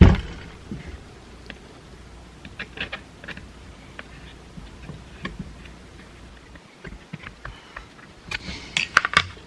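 Small clicks and taps of chainsaw parts being handled and fitted by hand: a knock at the start, scattered light clicks, and a quick run of sharper clicks near the end.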